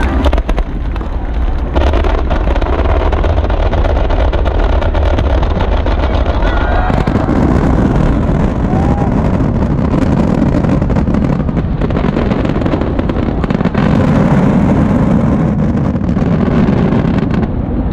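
Fireworks going off in rapid succession: a continuous rumble of booms packed with sharp crackling, growing fuller about seven seconds in.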